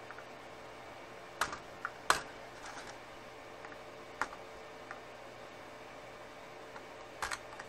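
A handful of sharp light clicks and taps spread over several seconds, the loudest about two seconds in, from a circuit board and soldering iron being handled while power-supply capacitors are desoldered. A faint steady hum lies underneath.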